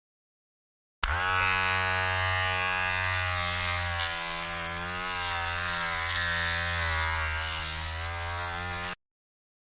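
Electric hair trimmer buzzing. It starts with a click about a second in, runs with its pitch wavering slightly, and cuts off suddenly near the end.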